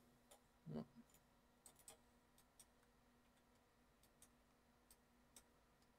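Near silence with faint, scattered clicks of a computer keyboard and mouse. There is a brief low murmur of a voice just under a second in.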